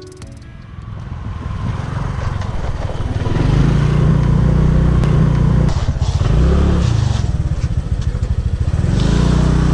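Rented motorbike's engine running as it rides. It grows louder over the first three seconds or so, then runs steadily, easing briefly about six to seven seconds in.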